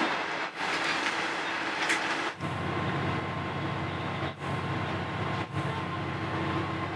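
Running noise of a diesel railcar in motion, heard from inside the carriage: a steady rumble of wheels on rail with the engine's hum. It drops out briefly several times where short shots are spliced together. From about two and a half seconds in, a steadier, lower hum with a faint held tone comes in.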